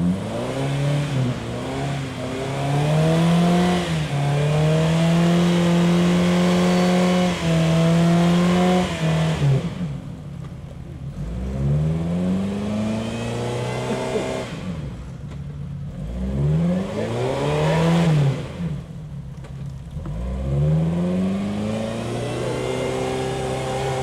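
Jeep Wrangler TJ's engine revving hard under load as its mud tyres churn through deep mud. It is held high for the first several seconds, then drops and is revved up and back down in repeated swells.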